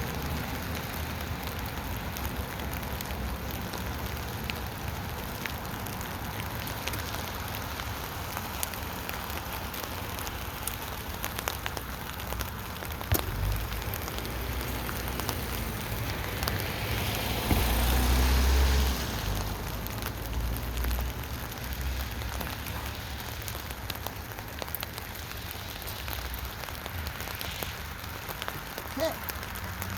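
Steady rain pattering on a tent canopy, with many small drop ticks. There is one sharp click about halfway, and a brief louder low rumble a little after it.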